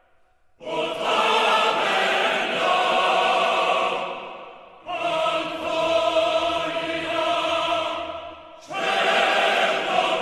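Background music of choir-like sustained chords: three long held chords that each start suddenly and fade out over about four seconds.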